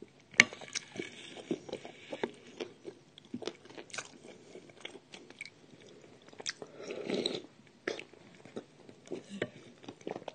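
Close-miked biting and crunching of dry edible clay: a string of sharp cracking bites and crumbly chewing crunches, with a longer, denser crunch about seven seconds in.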